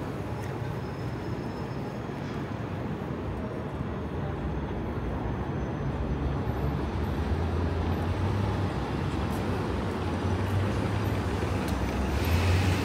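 City street traffic: a steady low engine rumble that grows louder about halfway through as a vehicle draws near, with a brief louder rush near the end.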